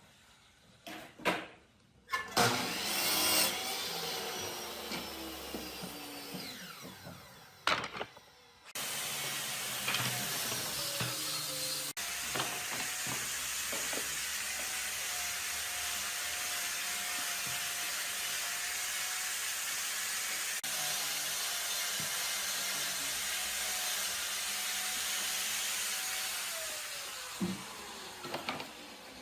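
An electric power tool working wood. There are a few short bursts in the first seconds, then a long steady run with a whine over a hiss, and the whine falls in pitch near the end as the motor winds down.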